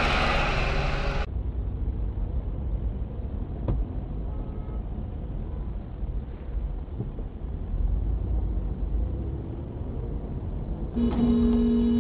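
Car driving in traffic, heard from inside the car through a dashcam: a steady low engine and road rumble. About a second before the end a car horn sounds one steady note, held for about a second and a half.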